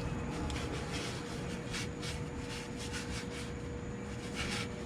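Rag or gloved hand wiping dripped oil off engine parts: a series of short rubbing strokes, quicker at first and sparser later, over a steady faint hum.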